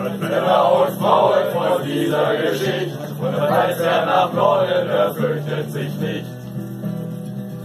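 A crowd of people singing or chanting together in chorus, many voices at once, over a steady low held accompaniment.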